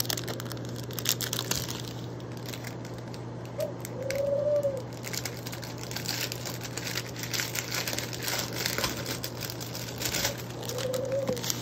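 Clear plastic bags of diamond-painting rhinestone drills crinkling and rustling as they are handled. Three short rising-and-falling tones sound in the background, one about four seconds in and one near the end.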